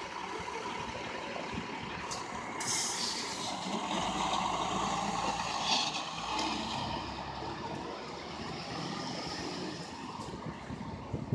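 Labrie Top Select side-loading recycling truck pulling away from a curbside stop: a short hiss of air about three seconds in, then the engine working harder as the truck moves off and fades down the street.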